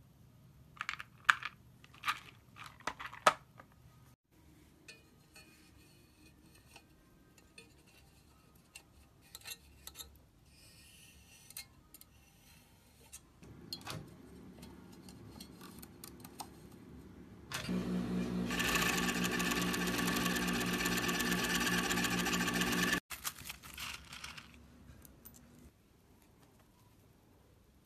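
Industrial sewing machine running steadily at speed for about five seconds, starting and stopping abruptly; it is the loudest sound. Earlier, a few sharp clicks of plastic bobbins being handled in a plastic bobbin box.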